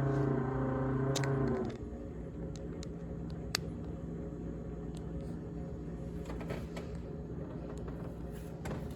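GE GTH18XCTZRBB refrigerator giving off the loud buzzing rattle of its evaporator fan. The rattle cuts off suddenly a little under two seconds in, leaving a quieter steady hum with a few light clicks.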